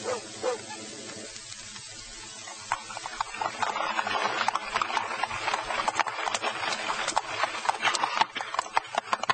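Horse hooves clip-clopping on a hard street, a dense run of sharp irregular hoof strikes that comes in about three seconds in and grows louder as the horse approaches.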